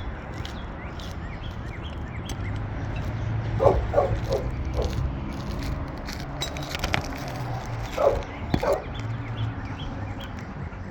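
A dog barking in short bouts: about four barks around four seconds in and two more near eight seconds, over a steady low rumble and scattered light clicks and knocks.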